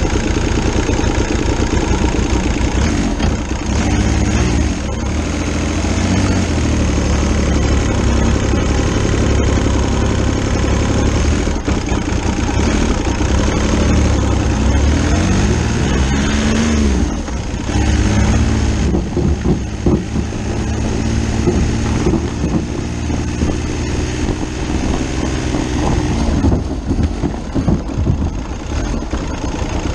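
Diesel motorcycle's VW Lupo 3L three-cylinder turbo diesel running, its note rising and falling in pitch about halfway through and again later as it is revved.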